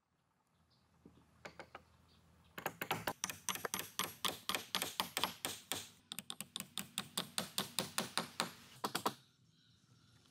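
A hand tool striking wood in fast, even strokes, about four a second, in two runs with a short break between, after a few scattered taps.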